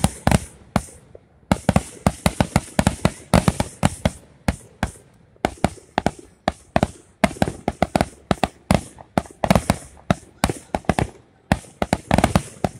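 Aerial fireworks shells bursting overhead, a rapid string of sharp bangs and crackles, several a second, coming in clusters with brief lulls between them.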